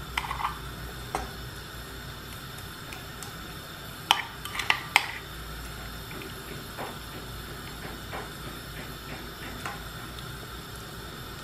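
Metal spoon clinking and scraping against a ceramic bowl while chili paste is scraped out of it into a pan of stock. Scattered light clinks, with three sharp ones close together about four to five seconds in.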